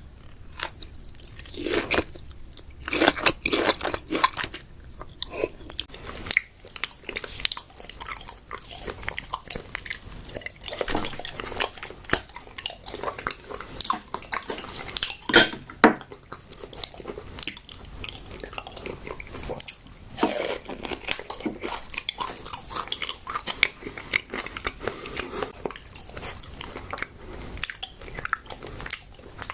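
Close-miked eating sounds: raw tuna being bitten and chewed, an irregular run of short clicks and mouth noises, with one sharper click about halfway through.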